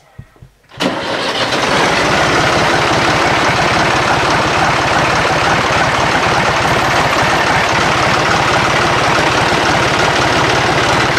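Fiat 450 tractor's three-cylinder diesel engine starting about a second in, catching at once, then running steadily with a fast, even firing beat.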